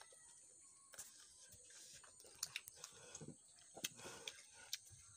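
Near silence, with a few faint, short clicks scattered through it.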